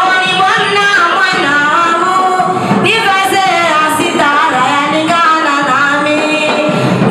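A group of voices singing together, continuously, with no clear instrumental beat.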